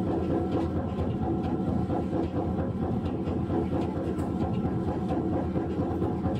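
Sapporo streetcar M100-class car M101 running along the track, heard from on board: a steady rumble of motor and running gear with light, scattered ticks and rattles.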